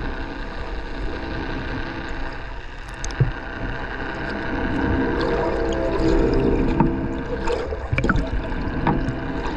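Boat on the water: a steady motor hum with water sloshing and gurgling along the hull, and a few sharp knocks.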